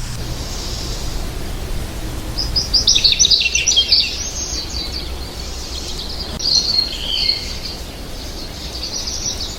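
American goldfinch singing: a dense run of quick, high twittering notes about two and a half seconds in, then shorter warbled phrases around six to seven seconds and again near the end, over a steady low background rumble.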